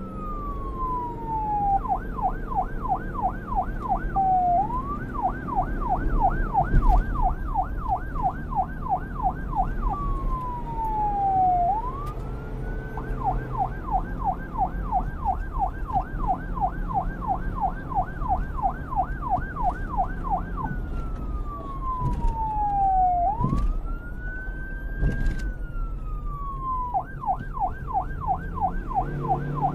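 Electronic fire-truck siren switching between a slow falling-and-rising wail and a fast yelp of about four sweeps a second, over a low rumble.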